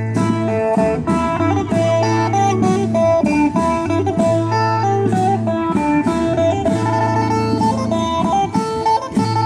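Lively instrumental music: a plucked string instrument plays a quick run of notes over a low bass note that returns every couple of seconds.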